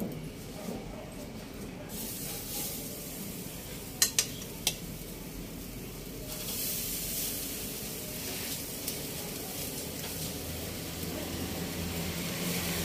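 Salmon fillets sizzling on a hot charcoal grill as they are laid on with metal tongs. A few sharp clicks of the tongs on the wire grate come about four seconds in, and the sizzle grows louder about six seconds in as more pieces go on; a low hum comes in near the end.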